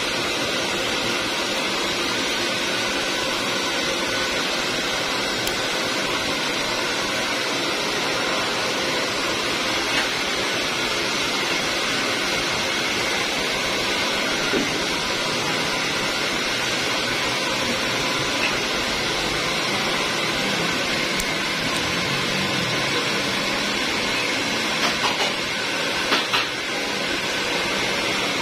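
Steady whooshing background noise, like a running fan, with a few faint sharp clicks of a stainless steel nail nipper snipping toenail, several of them close together near the end.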